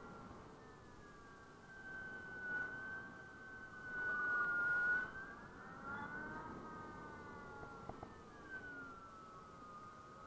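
Zero SR electric motorcycle's electric motor whining while riding, its high pitch slowly rising and falling with speed, over a rush of wind that swells about four seconds in.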